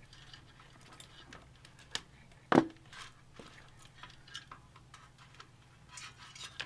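Small clicks, taps and rustles of hands handling cables and connectors inside a compact PC case, with one sharp knock about two and a half seconds in.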